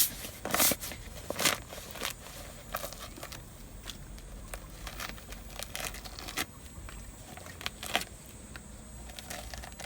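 Dried luffa gourd's papery skin being cracked and peeled off by hand: irregular dry crackles and crinkles, with a few louder snaps.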